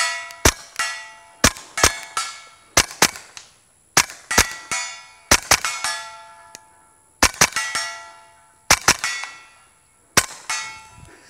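Suppressed .22 LR pistol (KelTec P17) firing subsonic rounds in a string of about sixteen shots in quick groups of two or three. Each shot is a short flat report, and many are followed by the ringing clang of steel plate targets being hit.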